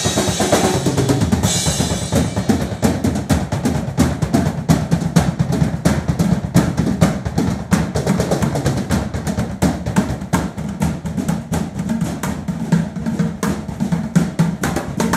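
Fast drumming with sticks: a drum kit with crashing Sabian cymbals for about the first second and a half, then the cymbals drop out, leaving rapid dry strokes on drums and upturned plastic buckets.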